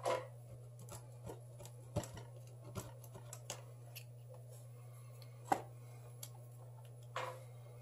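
Scattered small clicks and scrapes of a tool picking broken glass off a smartphone's front panel. The taps come irregularly, a handful of sharper ones among fainter ticks, over a steady low hum.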